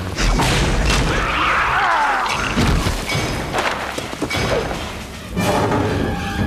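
Film fight sound effects: heavy booms and crashing impacts, with a gliding, screeching creature cry about a second in.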